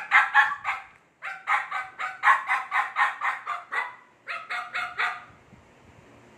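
Six-week-old Chow Chow puppy yapping in quick runs of short, high barks, about four a second. It comes in three bursts and falls quiet for about the last second.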